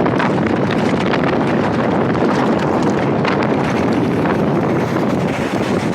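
Steady wind rushing over a small action camera's microphone on a mountain bike rider under way, with scattered short crackles.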